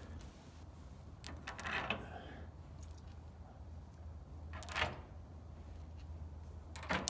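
Small metal hardware and hand tools clinking and rattling, in three short bursts: about a second and a half in, near five seconds, and at the end, over a low steady hum.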